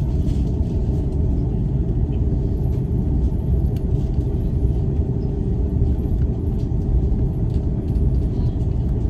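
Steady low rumble inside the cabin of an Airbus A330 airliner as it taxis, the engines at low power with the aircraft rolling along the taxiway.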